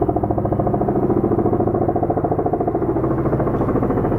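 Low-flying military helicopter overhead: a loud, steady, rapid chop from the rotor blades over a deep engine drone.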